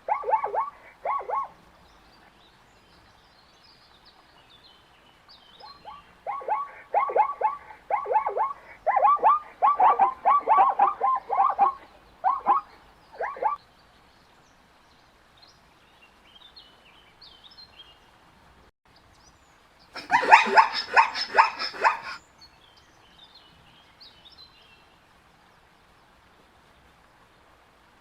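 Zebras calling: bouts of rapid, repeated yipping barks, the longest running for about seven seconds, then one louder, harsher call of about two seconds roughly twenty seconds in.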